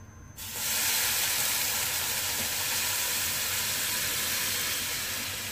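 Hot water poured into a hot pan of roasted semolina, sizzling and hissing as it hits. The hiss starts suddenly about half a second in and slowly fades.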